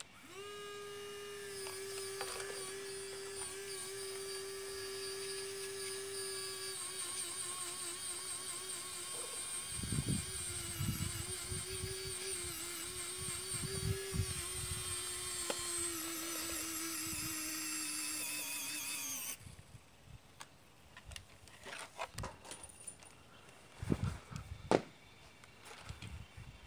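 Small electric motor of a radio-controlled rollback tow truck's bed mechanism running with a steady whine that wavers slightly and sags a little in pitch before cutting off suddenly about three-quarters of the way through. A few light clicks and knocks follow.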